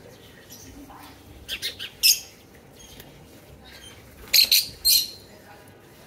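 Lovebirds giving short, high-pitched calls: a quick run of three about a second and a half in, a louder one at about two seconds, and a cluster of loud calls between about four and a half and five seconds.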